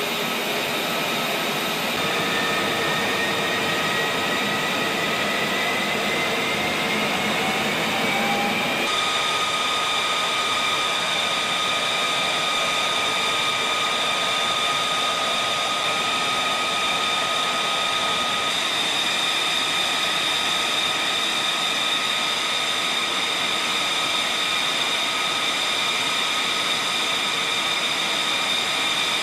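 F-35's Pratt & Whitney F135 jet engine running on the ground: a steady rush with several high-pitched whines. One whine rises slowly in pitch over the first several seconds before settling to a steady tone.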